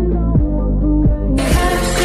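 Background music with a steady deep beat; it sounds muffled at first and turns bright again about two-thirds of the way in.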